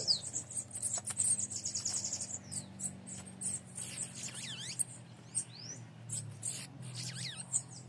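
Small songbirds chirping: a rapid, very high twittering trill for the first couple of seconds, then thin, quick down-slurred whistles scattered through the rest. A faint steady low hum runs beneath.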